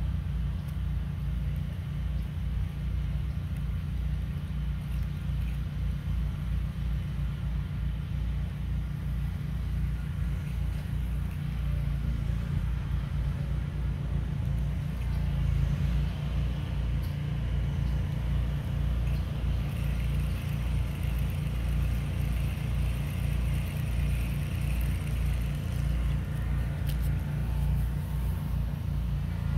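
Wind buffeting the microphone: a steady low rumble that flickers rapidly, with little else above it.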